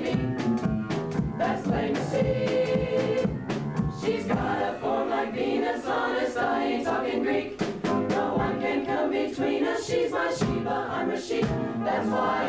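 Mixed-voice choir of young men and women singing a song together.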